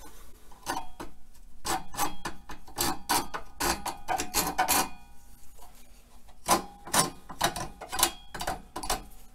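Hand file rasping across the end of an oak dowel rod clamped in a vise: quick back-and-forth strokes about three a second, a pause a little past halfway, then more strokes.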